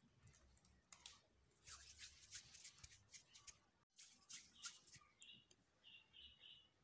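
Faint scattered clicks and rustles of hands handling a thin warqa pastry sheet and small balls of almond paste on a plate, close to near silence. The sound drops out for an instant about halfway, and a few faint high chirps come near the end.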